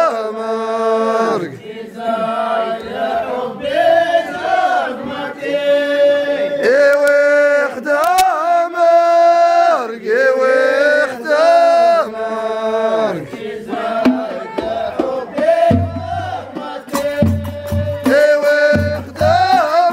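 A group of men chanting a Moroccan folk song together, backed by hand-held frame drums. A deep drum comes in with repeated low beats about four seconds before the end.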